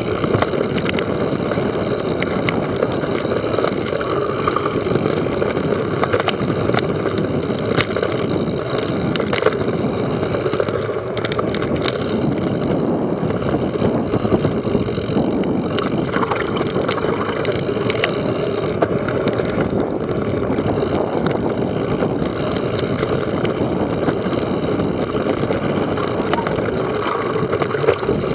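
Mountain bike descending a dirt trail: steady wind rush over the microphone and tyres rolling over the dirt, with scattered clicks and knocks as the bike rattles over bumps.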